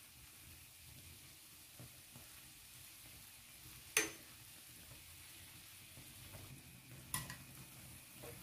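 Koeksister dough balls frying in hot oil in a stainless steel pan, a faint steady sizzle as they are turned over. A sharp click about four seconds in and another about seven seconds in, from the utensil knocking the pan.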